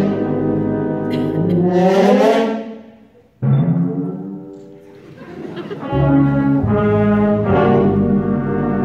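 Wind symphony (concert band) playing with brass and woodwinds. Sustained chords fade almost to nothing about three seconds in. A sudden loud entrance follows and dies away, then the full band comes back in with low brass about six seconds in.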